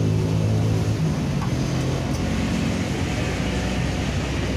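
An engine running steadily with a low hum that eases off after about two seconds into a rougher mechanical noise.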